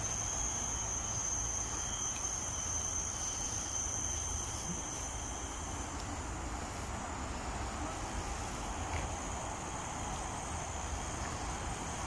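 Insects, crickets or cicadas, keeping up a steady high-pitched drone in several tones, over a low rumble. The highest tone breaks off for about a second halfway through, then resumes.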